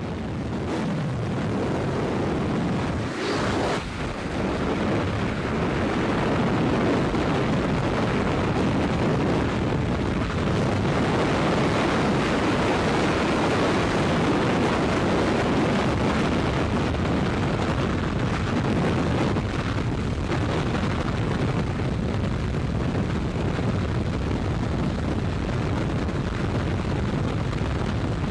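Loud, steady rush of freefall wind buffeting the microphone during a tandem skydive. It fades in at the start and dips briefly about three seconds in.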